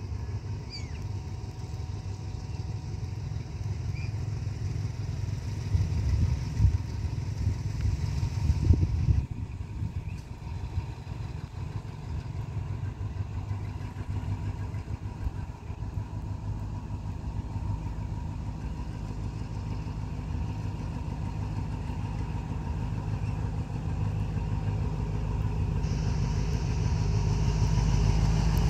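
Alstom diesel-electric locomotive running light and approaching slowly, its engine rumble growing louder toward the end. A louder rumble comes and goes about six to nine seconds in.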